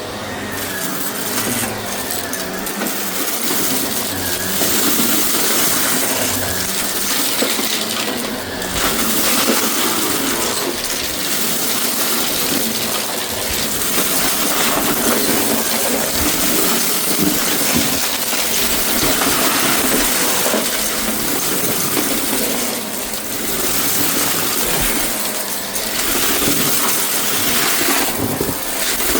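Shark vacuum cleaner running and sucking up a debris mix from a rug, with grit and small bits rattling through the machine. The sound dips briefly a few times.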